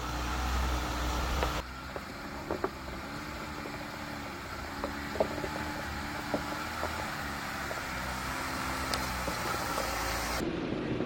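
Jeep Gladiator's engine running steadily at low speed as it crawls a rough dirt trail, with occasional sharp knocks and clunks from the rocky ground and suspension.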